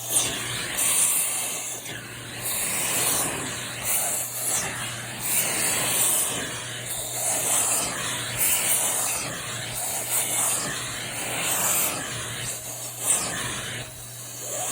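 Vacuum cleaner running with a steady motor hum while its nozzle is worked over a mattress; the sucking hiss swells and eases roughly once a second as the nozzle is pushed back and forth.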